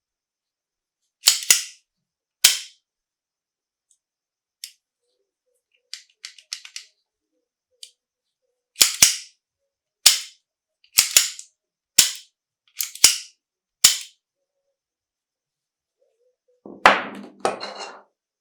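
Sharp metal clacks of the FN M1900 pistol's action being worked by hand, a dozen or so, several in quick pairs, with fainter ticks between. A longer, heavier clatter comes near the end.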